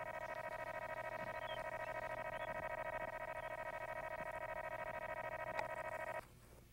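Steady, buzzy electronic tone from a training audio monitor, sounding while ear-pinch pressure is applied to the dog; it cuts off sharply about six seconds in as the pressure comes off.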